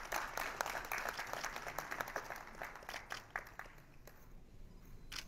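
Guests applauding, the clapping thinning out and dying away after about three and a half seconds. A few sharp camera-shutter clicks near the end.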